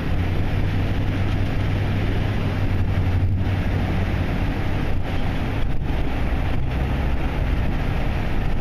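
Steady road and engine noise heard from inside a car's cabin in slow traffic through a road tunnel, with a strong low hum under an even rush.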